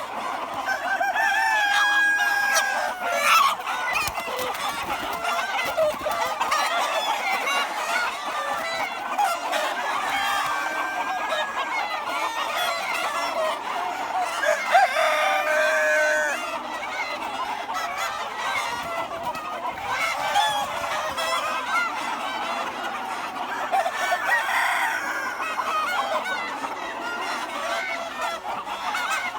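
A flock of chickens clucking continuously, with roosters crowing several times, notably about two seconds in and around the middle.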